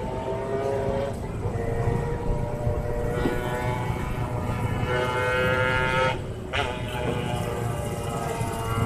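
A motor running steadily with a constant hum over a low rumble. The hum drops away briefly about six seconds in.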